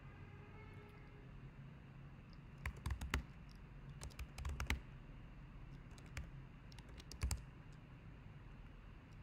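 Typing on a computer keyboard: a few short bursts of keystrokes, separated by pauses.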